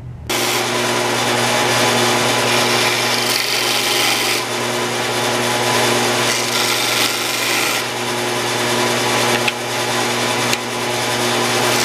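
Electric bench disc sander running with a steady hum, its abrasive disc grinding down the edge of a carbon fiber heel guard blank. The grinding swells and eases as the part is pressed against the disc and moved.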